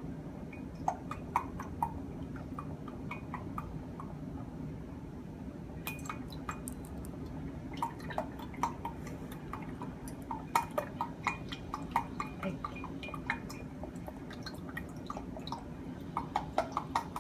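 Milk being poured from a carton into a measuring cup: irregular glugs, splashes and drips, with small clinks and knocks of the containers.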